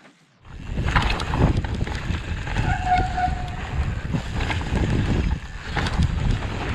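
Wind rushing over the microphone of a handlebar-mounted camera as a mountain bike rides through snow, with the tyres rumbling over the packed snow and scattered knocks from the bike. It starts about half a second in, and a brief high squeal sounds near the middle.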